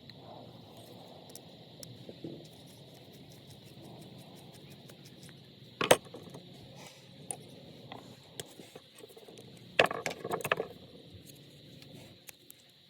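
Light clicks and taps of small hard parts being handled, with one sharp click about six seconds in and a short clatter of several knocks around ten seconds.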